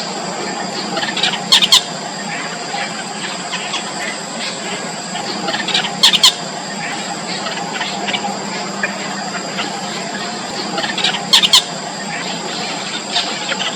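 Four-day-old nestlings giving shrill, squeaky begging calls in three loud bursts about five seconds apart, with fainter cheeps between them, over a steady background hum.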